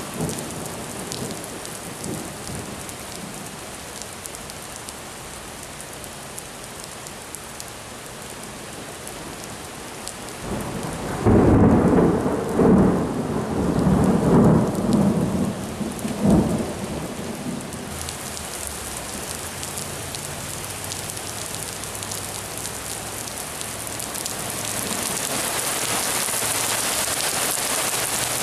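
Steady heavy rain hissing, with a loud rolling clap of thunder about eleven seconds in that rumbles with several peaks for about five seconds. The rain grows louder near the end.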